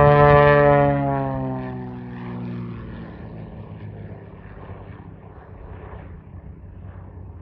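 Cessna U206G Stationair's six-cylinder piston engine and propeller droning as the plane passes low overhead on its landing approach. The pitch drops as it goes by, then the sound fades steadily as it flies away.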